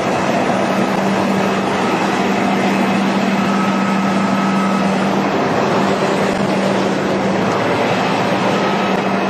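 Utility bucket truck's engine running steadily close by, a constant hum with a steady low tone under a broad rushing noise.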